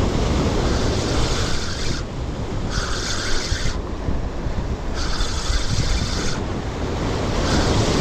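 Fishing reel cranked in spurts of about a second, winding in a hooked fish that is pulling hard, over a steady bed of wind on the microphone and surf.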